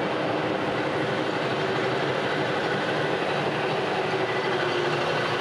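Metal lathe running steadily while its cutting tool takes a facing cut across an arbor press daisy wheel. It makes an even mechanical running noise with a few held tones.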